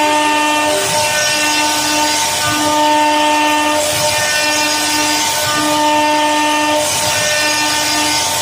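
CNC router carving wood: a steady high whine from the spindle with the hiss of the bit cutting, and a lower motor hum that switches on and off about once a second.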